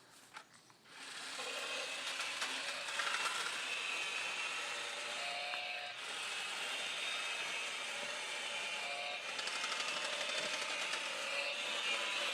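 Chainsaw starting about a second in and running steadily, cutting into wood.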